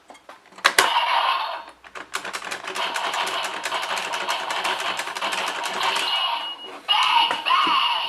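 DX Geartlinger toy morpher: a click about a second in, then a fast run of rattling ticks for several seconds, and near the end electronic sound effects from the toy's speaker.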